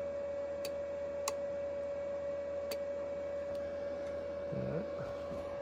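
A steady whine with a low hum beneath it and scattered sharp clicks from a powered-up CB linear amplifier and radio setup under test, just after its keying circuit was replaced.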